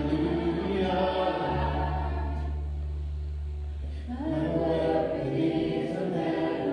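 Worship band playing a slow song: voices singing together in long held notes over electric bass and acoustic guitar, with a new sung phrase starting about four seconds in.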